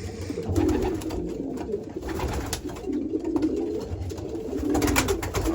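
Racing pigeon cocks cooing, several calls overlapping steadily, as cocks in breeding condition do while claiming their nest boxes. A brief rattle of clicks comes about five seconds in.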